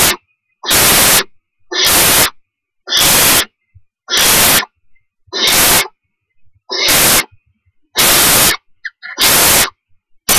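Barn owl owlets hissing: a long run of harsh, rasping hisses, each about half a second long, repeated steadily about once every 1.2 seconds.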